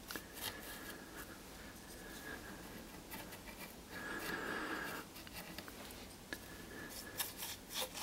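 Faint scratching and rubbing of a paintbrush working a thin wash over a plastic mask, in irregular strokes with a few light ticks near the end.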